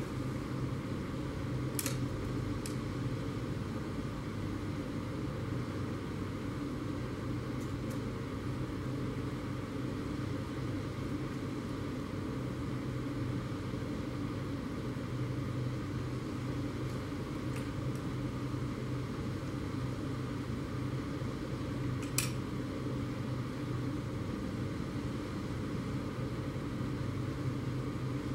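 Steady low background hum with a few faint, sharp clicks scattered through it.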